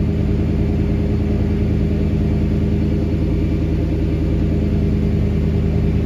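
GMC van's throttle-body-injected engine idling steadily at its cold fast idle, heard from inside the cab.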